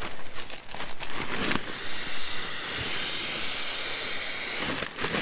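Steady rush of air for about three seconds as a nylon pump sack is squeezed to inflate a backpacking sleeping pad through its valve, after a second or so of nylon rustling.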